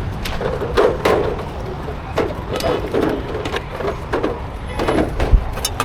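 Short knocks, taps and scrapes of a street-food vendor's utensils as he fills a flatbread, with voices murmuring underneath.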